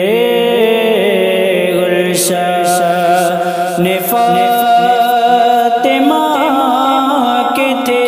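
A manqabat, an Urdu devotional song, sung by a solo voice that holds long notes which slide and waver in pitch.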